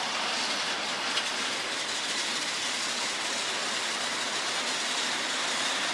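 Battery-powered Trackmaster toy steam engine running on plastic track, a steady even noise with no change.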